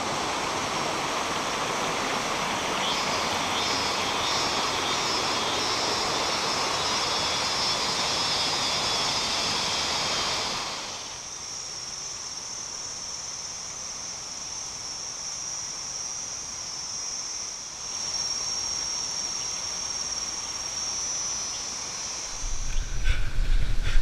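Rushing water from a waterfall, a steady loud rush with a high insect drone over it, for about the first ten seconds. Then the water drops away and a steady high-pitched drone of cicadas carries on alone. Near the end, thudding footfalls of running on a dirt trail begin.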